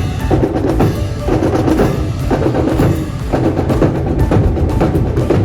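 Brass band playing marching music with drums: snare, bass drum and sharp clacking strikes.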